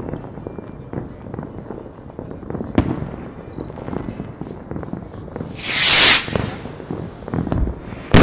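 Distant fireworks: a steady run of many overlapping bangs and crackles, with a louder crack about three seconds in. Around six seconds in there is a loud hiss lasting under a second, and near the end a sharp bang.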